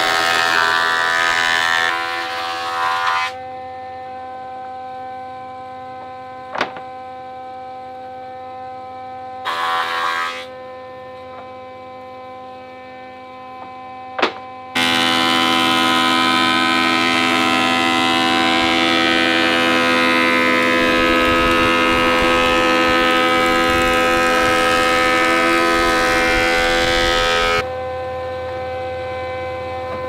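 Grizzly thickness planer running with a steady hum, cutting a pine board at the start and again from about halfway until near the end, when the cutting noise is much louder. In between, the motor runs without a board, with two sharp clicks.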